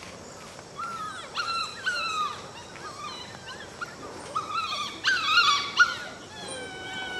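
A 12-week-old poodle puppy whining: a string of short, high-pitched whimpers that rise and fall in pitch, loudest about five to six seconds in.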